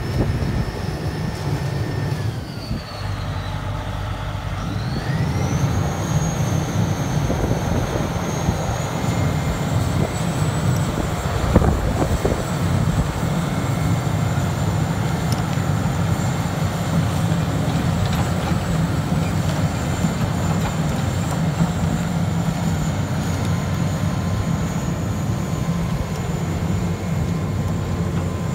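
Vögele Super 1800-2 tracked asphalt paver on the move, its diesel engine running steadily. A high whine falls in pitch and climbs back up a few seconds in, and there is a single clank about twelve seconds in.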